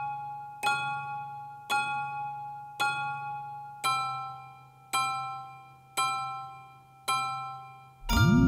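Background piano music: slow chords struck about once a second, each left to ring and fade. Near the end a loud, sustained low tone swells in beneath them.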